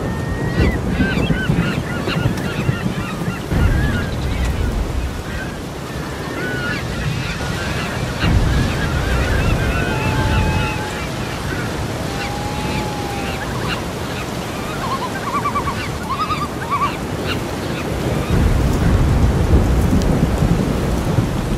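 Many birds calling over one another, short wavering calls, against heavy wind rumble on the microphone that swells near the start and again near the end.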